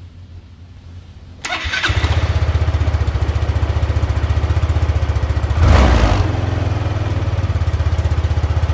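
A Yamaha Mio MXi 125 fuel-injected single-cylinder scooter engine starts about a second and a half in and settles into a steady idle. It is blipped briefly once around the middle and falls back to idle. This is a test of how the idle holds after a throttle stopper was fitted to cure an idle problem.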